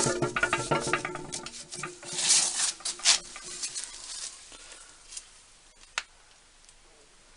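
Washers and nuts being fitted onto bolts by hand: small steel parts clinking and rattling, with some ringing, through the first two seconds, a brief scraping rustle a little after that, then a few scattered clicks, one sharp one about six seconds in.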